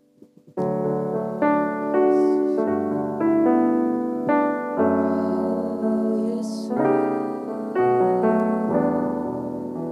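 Keyboard playing a slow piano introduction to a worship song, with sustained chords changing about once a second. It comes in about half a second in, after a brief near silence.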